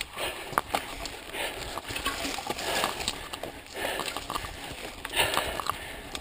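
Mountain bike rattling and knocking as it runs fast down a rough dirt-and-rock singletrack, with irregular sharp knocks over the hiss of the tyres on the trail.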